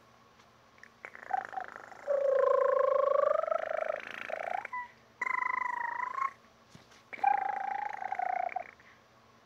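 A girl imitating a cat's purr with her voice, three times: one long purr rising slightly in pitch, then two shorter ones.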